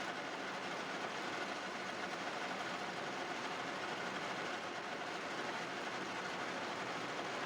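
Metal lathe running steadily while machining a metal pulley for an electric motor: an even mechanical noise with a faint steady whine and no separate knocks.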